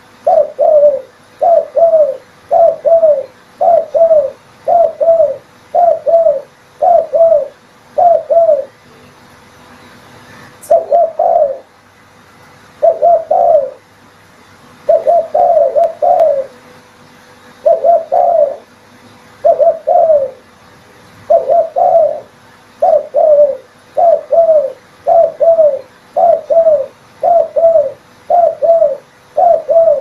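Spotted dove cooing over and over, a low coo phrase about once a second, with a longer pause about a third of the way in.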